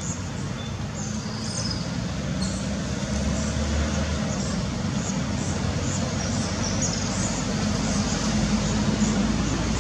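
Steady background rumble with a low hum, getting slightly louder, and faint short high chirps repeating about twice a second.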